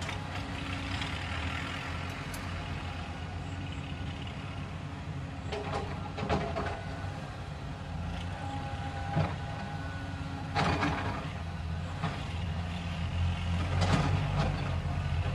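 Caterpillar hydraulic excavator's diesel engine running steadily as the machine digs and swings its boom, with several sharp knocks along the way. It grows a little louder near the end.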